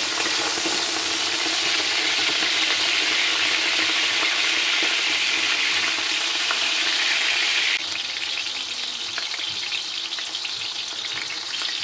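Cubed potatoes frying in hot oil in a metal wok: a steady sizzle, stirred with a wooden spoon. The sizzle gets a little quieter about eight seconds in.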